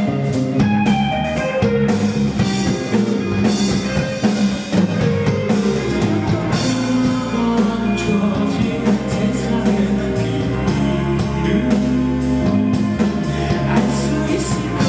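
Rock band playing live on stage: electric bass, electric guitar and a drum kit with a steady beat.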